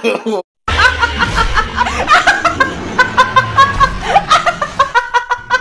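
Laughter in quick repeated bursts, several a second, after a brief silence near the start.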